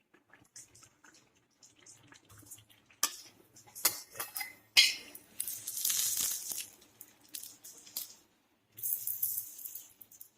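Metal ladle clinking and scraping against a plate as fried adhirasam are pressed to squeeze out the oil. One sharp clink comes about five seconds in, with two bursts of hissing around six and nine seconds.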